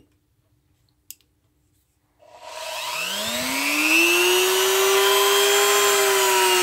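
A small handheld rotary tool fitted with a wire wheel is switched on a couple of seconds in. Its motor whine rises as it spins up, then it runs steadily.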